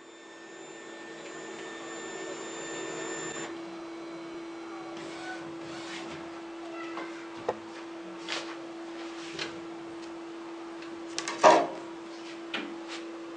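Flatbed inkjet printer running: a motor whine over a steady hum for about the first three and a half seconds, then the hum alone as the print tray comes out. Scattered clicks and knocks follow as the flash-card tray is handled and lifted off, the loudest knock about eleven and a half seconds in.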